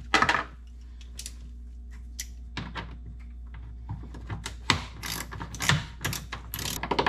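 Ratchet with a 5 mm Allen socket clicking as a stock bolt is backed out. A short loud clatter comes right at the start, and irregular clicks and knocks follow, more of them in the second half.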